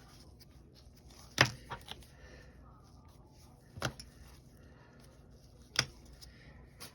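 Sharp knocks of small objects handled and set down on a hard tabletop: three distinct knocks about two seconds apart, the first the loudest with a softer tap just after it.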